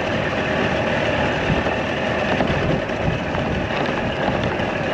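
Steady rumble and rattle of a golf cart running on a gravel track right beside a long freight train of tank cars.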